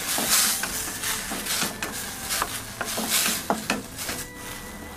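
Diced tomatoes sizzling in hot oil in a stainless steel wok as a wooden spatula stir-fries them, with repeated clicks and scrapes of the spatula on the pan. The sizzle comes in surges and dies down toward the end.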